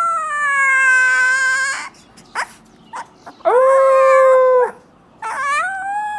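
A puppy howling: three long, drawn-out howls with a brief high squeak between the first two. The last howl rises and then falls in pitch.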